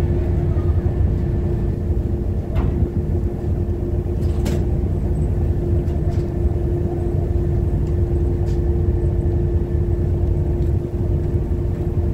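Icebreaking sightseeing boat's engine drone heard on deck: a steady low rumble with a constant hum, with a few brief sharp knocks along the way.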